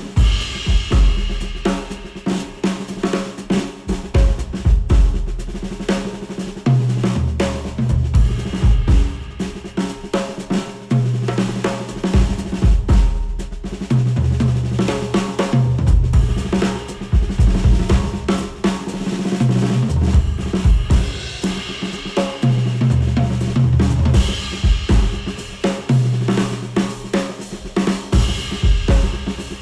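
Instrumental music with a driving drum kit (snare, kick, cymbals and hi-hat) over a deep bass line, played back through HIFIMAN Edition XS open-back planar-magnetic headphones and picked up by microphones at the earcups.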